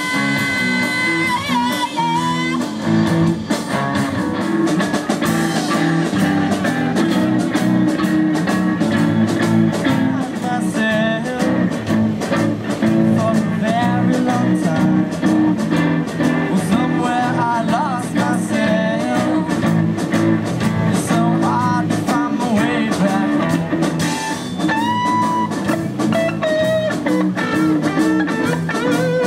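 Live rock band playing: electric guitars and electric bass over a drum kit, with a boy singing lead. Sustained electric guitar lead notes ring out near the start and again about 25 seconds in.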